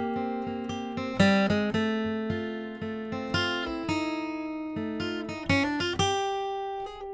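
Martin D-18 Modern Deluxe acoustic guitar, a torrefied-top dreadnought, played with a capo: picked notes and chords struck one after another and left ringing, with a firmer chord strike about a second in and again near the end.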